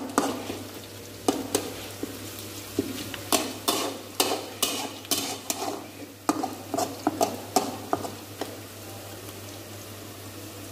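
Sliced onions sizzling steadily in hot oil in a kadai while a metal spatula scrapes and clacks against the pan in quick, irregular strokes; the stirring stops about eight seconds in, leaving only the sizzle. The onions are browning.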